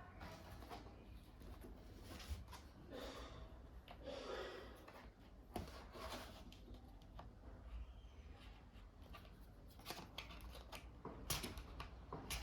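Faint hand-handling noises on a laptop: scattered light plastic clicks and a few brief scrapes and rubs, with a quick run of sharper clicks near the end.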